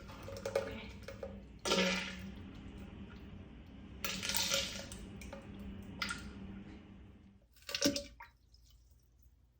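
Person defecating into a toilet: diarrhea spattering and plopping into the bowl water in several separate bursts, the sharpest about eight seconds in.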